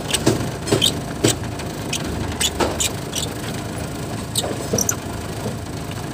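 Scattered clicks, knocks and light squeaks of parts being handled at a van's steering wheel, over a steady low hum.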